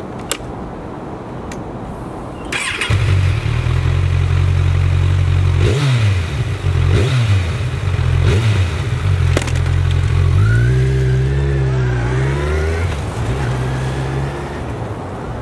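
Kawasaki Z1000's inline-four engine starting about three seconds in and idling, then revved sharply several times. From about ten seconds in it pulls away, rising in pitch as it accelerates, and fades into the distance.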